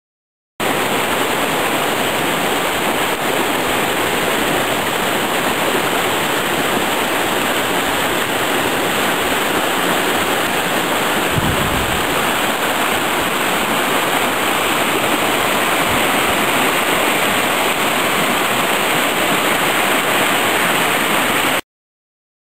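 Swollen, muddy creek in flood, rushing over stones and broken concrete: a steady, loud rush of water. It cuts in about half a second in and cuts off abruptly near the end, with one short low bump about halfway through.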